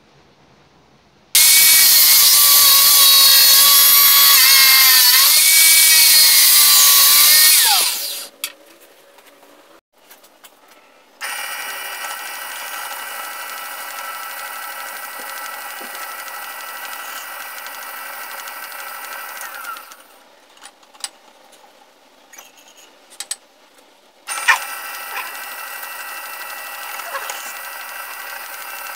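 Drill press running in three spells, drilling pin holes through a steel handle plate cut from a motorcycle brake disc. The first spell is the loudest, and its pitch sags about five seconds in before it winds down. Short clicks fall between the spells.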